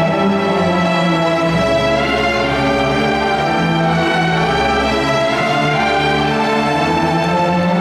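Orchestra of bowed strings and brass playing a sustained classical passage, with a deep low note coming in about a second and a half in and holding.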